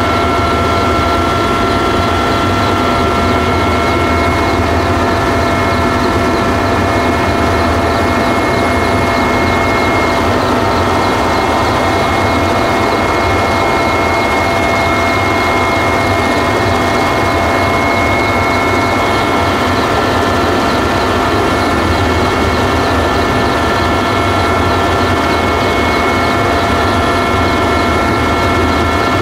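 Helicopter in flight heard from aboard: a loud, steady engine and rotor drone with a constant high whine over it.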